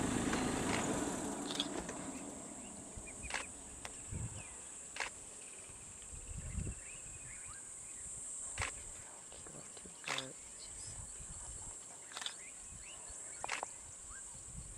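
Steady high-pitched chorus of insects, with scattered soft clicks and taps. A low idling vehicle engine fades away over the first couple of seconds.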